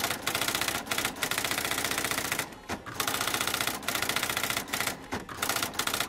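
Typewriter typing sound effect: a rapid, continuous run of keystrokes with a few short breaks, the longest about two and a half seconds in.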